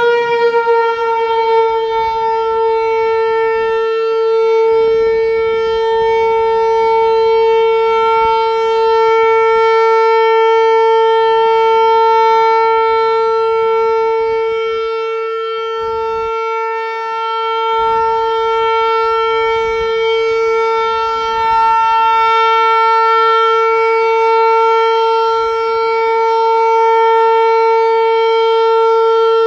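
Hörmann HLS 273 civil-defence siren, just wound up to pitch, holding one steady, unbroken tone with gentle swells and dips in loudness. This is the continuous all-clear signal (Entwarnung) sounded during a siren test.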